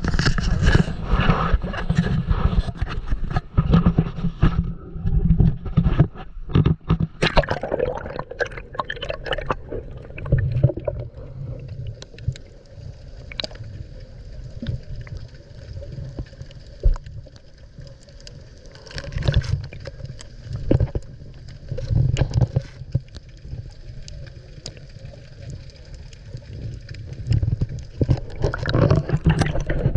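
Water gurgling and sloshing around a kayak, with scattered knocks and splashes, under a steady low rumble; it is busiest in the first several seconds and again near the end.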